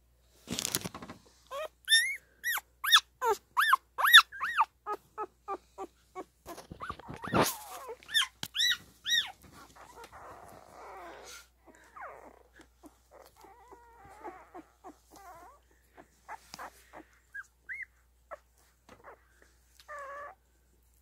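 Newborn standard poodle puppies squealing and whimpering as they nurse: a run of short, high, arching cries about two a second for the first several seconds, then softer squeaks and grunts. Two loud rustles, near the start and about seven seconds in.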